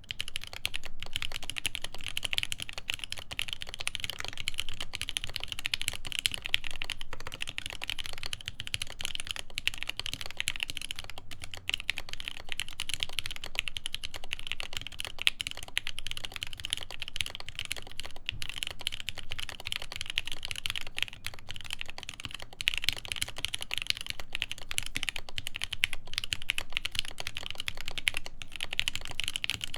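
Continuous fast typing on a custom mechanical keyboard with lubed Everglide Tourmaline Blue v2.5 switches, a polycarbonate plate and GMK keycaps: a dense run of keystroke clacks with no pauses.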